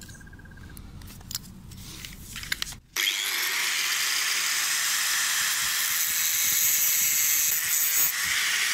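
Angle grinder switched on about three seconds in, then running steadily as its disc cuts down a steel sliding-door roller bracket plate. Before it starts there are a few light clinks of the metal plate being handled.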